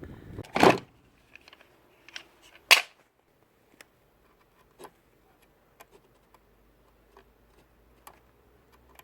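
Clicks and knocks of hand tools and small parts being handled while working on the table saw's switch wiring. Two louder sharp knocks come within the first three seconds, then scattered light clicks and taps.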